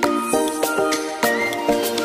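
Background music: a melody of pitched notes over a steady beat.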